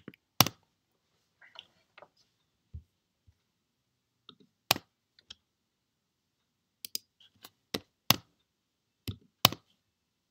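Computer keyboard keys and mouse clicks: about a dozen sharp, single clicks at irregular intervals, the loudest about half a second in and several close together near the end.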